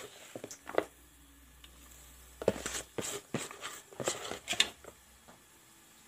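Cut chayote strips dropped by hand into an aluminium wok: scattered soft taps and rustles, a couple about half a second in and a busier run from about two and a half to almost five seconds in.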